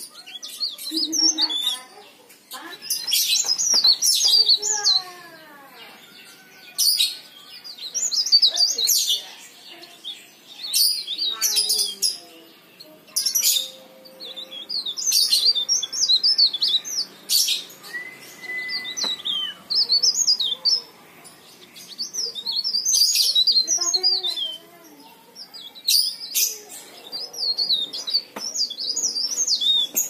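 A cikrak daun, a small leaf warbler, singing in full voice: repeated bursts of quick, high-pitched twittering notes, each phrase a second or two long, with short pauses between.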